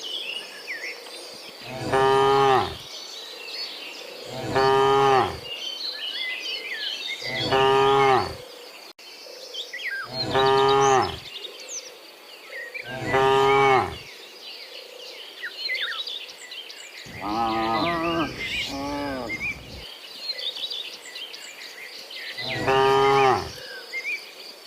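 Cattle mooing: about seven long, low moos, most coming about every three seconds. A longer, wavering moo falls a little past the middle. Faint high chirping of birds or insects fills the gaps between the calls.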